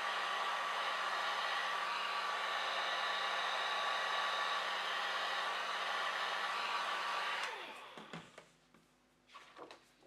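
Small hand-held hair dryer blowing steadily on a low setting, switched off about three-quarters of the way in, its motor whine falling as it winds down. A few brief faint handling sounds follow as the paper is picked up.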